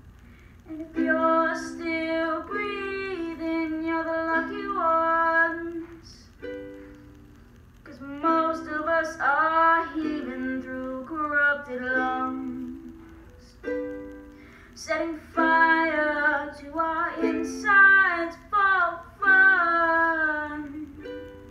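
A young woman singing while strumming a ukulele, in sung phrases separated by short gaps where the ukulele chords carry on alone.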